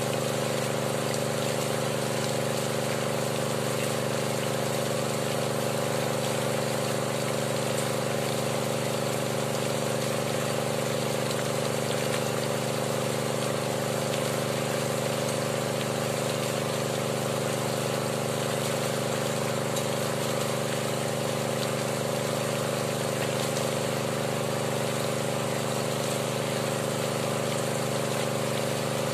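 Small engine-driven water pump running steadily at a constant speed. It supplies water through the hose to the hand-turned drill pipe while a borehole is wash-drilled.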